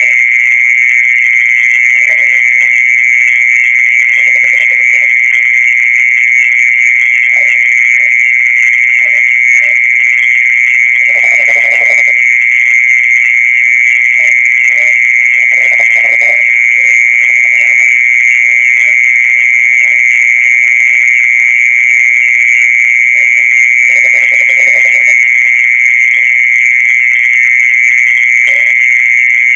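Steady, unbroken high-pitched trill held at one pitch, the night song of a mole cricket that is popularly taken for an earthworm's call. Brief, faint lower-pitched calls come and go behind it.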